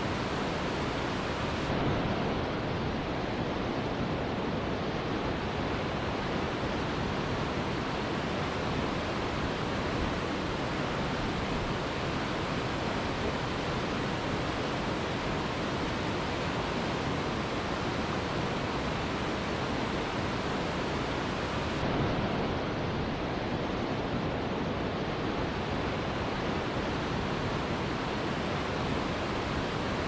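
Waterfall's rushing water: a steady, even noise with no pitch. About two seconds in and again about twenty-two seconds in, the sound shifts slightly, swelling for a moment while the highest hiss drops away.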